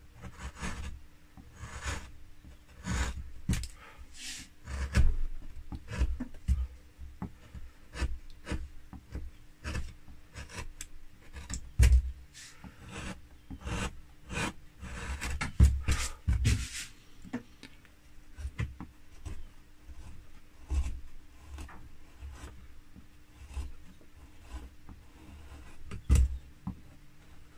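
Hand-pushed carving chisel cutting linden wood along the edge of a leaf's vein: a run of short scraping, slicing strokes at irregular intervals.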